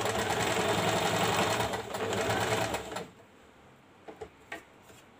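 Small electric sewing machine running steadily as it stitches along the edge of thin chiffon fabric, stopping suddenly about three seconds in. A few faint clicks follow.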